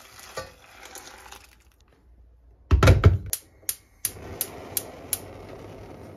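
Hot water poured from a kettle onto dry pasta in a stainless steel pot, then a loud metallic clatter about three seconds in. After that a gas hob's spark igniter clicks about six times, roughly three a second, and the burner catches and runs on with a steady hiss.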